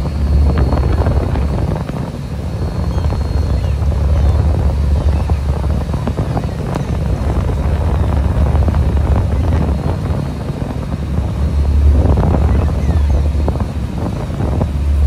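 A fishing boat's engine running, a steady low rumble, with wind buffeting the microphone in gusts.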